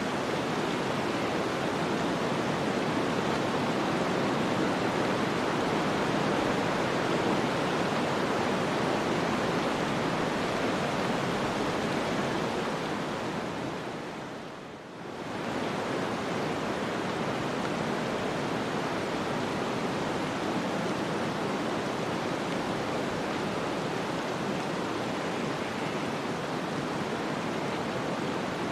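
Snowstorm ambience: a steady, even rushing of wind-driven storm noise. About halfway through it fades down briefly and swells back within a couple of seconds.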